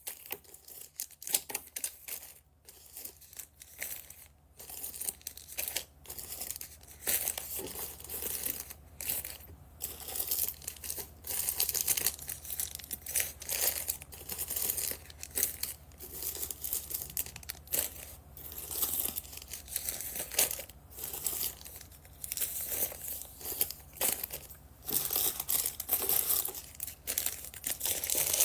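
Plastic bags crinkling as they are handled, an irregular run of sharp crackles.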